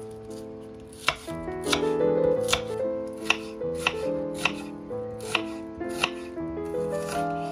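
A kitchen knife slicing through an onion on a wooden cutting board, the blade knocking against the board with each cut, about ten cuts at an even pace. Background music plays underneath.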